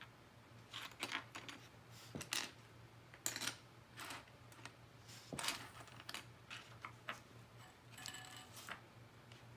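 Small plastic LEGO pieces clicking and rattling against one another in irregular, scattered taps as they are sifted through by hand in search of a part.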